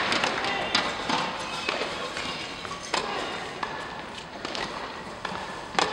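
Applause dying away at the start, then the quiet of an indoor tennis hall, broken by scattered sharp taps of tennis balls and faint voices. The loudest tap comes near the end.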